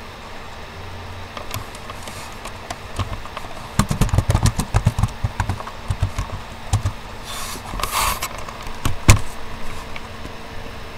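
Computer keyboard typing: a quick run of key clicks with low thuds, then a short hiss and one louder key strike a little after nine seconds, as a command is entered. A faint steady hum sits underneath.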